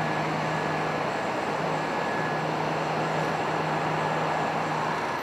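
Steady mechanical noise: a low hum under an even rushing sound, with a faint high whine, unchanging throughout.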